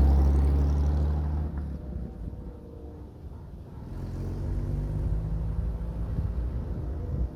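A car engine running. Its low hum is loud at first and eases off over the first few seconds. It picks up again from about three seconds in, the pitch shifting a little.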